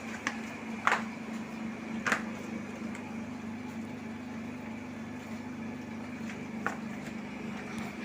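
Steady mechanical hum of a running room appliance, with four brief sharp high sounds, chirps or clicks, near the start and again later on.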